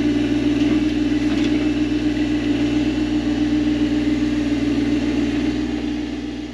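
John Deere 1025R subcompact tractor's three-cylinder diesel engine running steadily at constant speed, fading out near the end.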